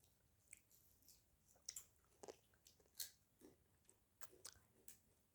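Faint close-up chewing of a milk-chocolate ice cream coating with popping-candy bits: a scatter of small crunches and clicks, about two a second, irregular.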